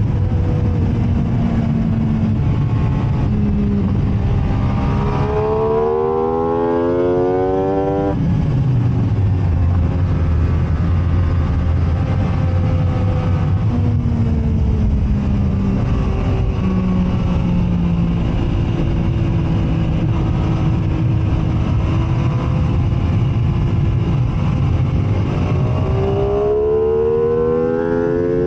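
MV Agusta F3 675 three-cylinder sport bike engine revving hard up through a gear. About a third of the way in, the revs drop sharply for braking. A long stretch of lower, steadier part-throttle running follows, with small rises and falls, and the engine accelerates hard again near the end. Wind rush runs underneath.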